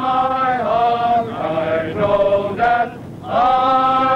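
A crowd of young men singing a Black American protest song together in slow, drawn-out phrases, with a short break about three seconds in.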